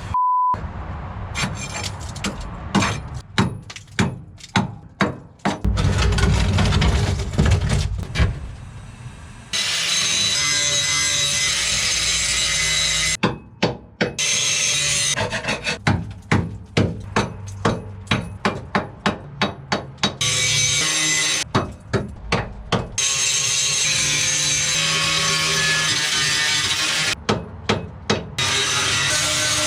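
Metal fabrication work: stretches of a power tool grinding steadily, starting and stopping abruptly, alternate with runs of sharp knocks and clicks.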